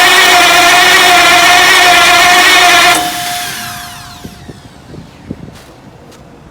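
Heavy generator engine being cranked by its starter motor without firing: a loud, steady mechanical whine that cuts off about three seconds in and falls away as it spins down, followed by a few faint clicks. The engine is failing to start.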